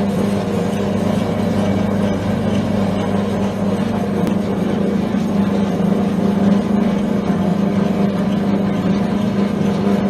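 Double-feed garlic root and stem cutting machine running steadily, its circular cutting blades turning, with an even mechanical hum.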